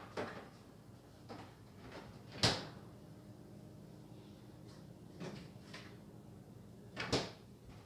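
A few light bumps and two sharp knocks, the first about two and a half seconds in and the second about seven seconds in, the sort a cupboard door, drawer or container makes when handled, over a low steady hum.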